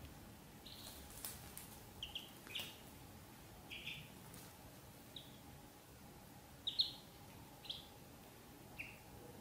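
Ducklings peeping: about a dozen short, high peeps come one or two at a time at uneven gaps, the loudest a quick pair just past the middle.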